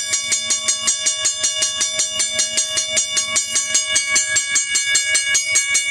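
1982 first-generation Western Cullen Hayes mechanical railroad crossing bell ringing continuously: its striker hits the gong in rapid, evenly spaced strokes, several a second, each leaving a steady clear ring.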